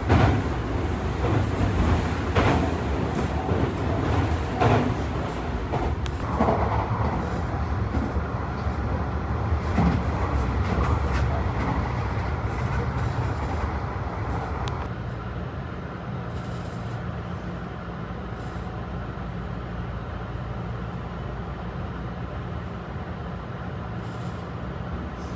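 Tobu 50090 series electric train running, heard from inside the car: a steady low rumble with wheels knocking over rail joints or points several times early on. About fifteen seconds in, the running noise drops to a quieter, even rumble.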